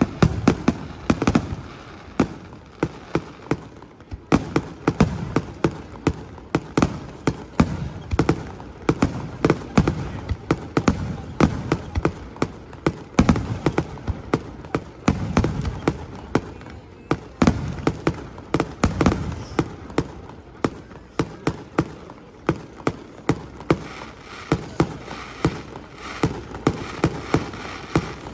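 Fireworks display, with aerial shells bursting in quick succession. The bangs come several a second, with a low rumble between them.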